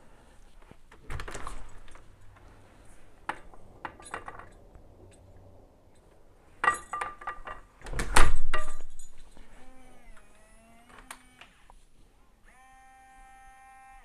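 An exterior door is handled with knocks and clicks, then pushed shut with a heavy thud about eight seconds in. A second or so later the Bosma Aegis smart lock's motor whirs briefly, throwing the deadbolt as it auto-locks on the closed door. A steady tone follows near the end.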